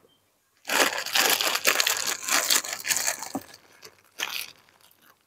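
Thin plastic bag crinkling as it is handled and pulled open around a portion of sticky rice, a continuous rustling for about three seconds, then one short rustle about a second later.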